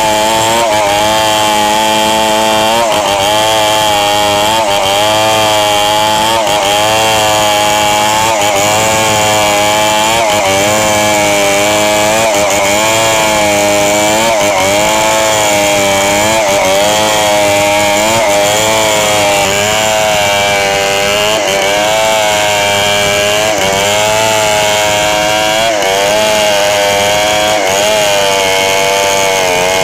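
Stihl 070 two-stroke chainsaw at full throttle, ripping lengthwise through a hard red meranti log. It runs without a break, its pitch dipping and recovering every second or so as the chain bites into the hardwood.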